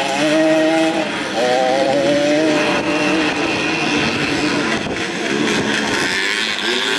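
A pack of vintage motocross motorcycles revving hard as they accelerate. The engine pitch rises and falls as they shift, with a brief drop about a second in.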